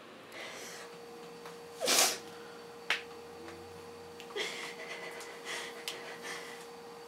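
A woman crying quietly: a sharp loud sniff about two seconds in, then short, shaky, breathy sobs and sniffles in the second half, over a faint steady hum.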